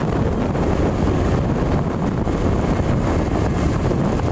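Wind rushing over the microphone of a moving motorcycle, with the motorcycle running steadily along a paved road underneath: a constant low rumble.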